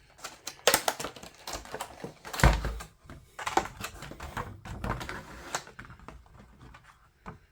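Irregular plastic clicks, taps and rattles from handling a smart dimmer switch and its small parts, with one heavier thump about two and a half seconds in.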